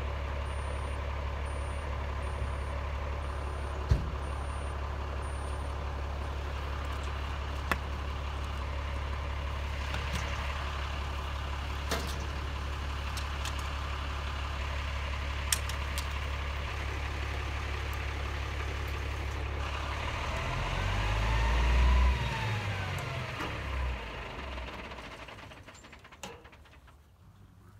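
Truck engine idling with a steady low hum, with a few sharp clicks over it. About twenty seconds in the engine sound swells, peaks and falls away, and it fades out near the end.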